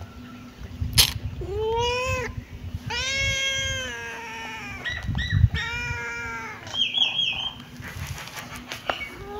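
Kitten meowing: three drawn-out, high-pitched meows of about a second each, with a short meow between them. Near the end comes a brief high warble.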